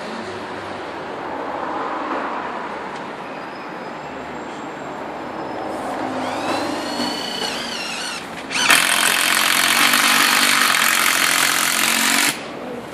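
Cordless drill: a short whine that rises and levels off as the motor spins up about six seconds in, then a loud, steady stretch of drilling into the wall from about nine seconds, stopping shortly before the end.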